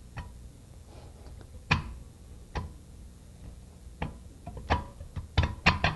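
Sliding-vane pump cam being worked into the pump casing by hand: a series of short, sharp clicks and light knocks at irregular intervals, bunching up near the end.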